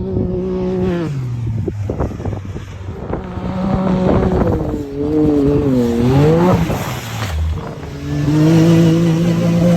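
Ford Coyote 5.0 V8 in a 1966 Bronco running while the truck is driven. The engine note holds steady, drops about a second in, rises and falls between about four and six and a half seconds in, and settles steady again from about eight seconds in.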